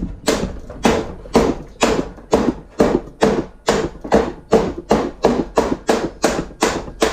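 Hammer tapping a car door skin's edge back down over the door frame, an even run of sharp metallic blows about two a second, each ringing briefly. This is the skin's flange being folded over to close the door after rust repair.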